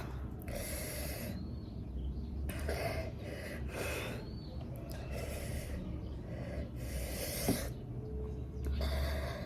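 A person breathing hard and noisily in and out, with sniffs and gasps, about seven breaths at roughly one every second and a half. These are the pained, hissing breaths of someone whose mouth and nose are burning from an extremely hot chili chip.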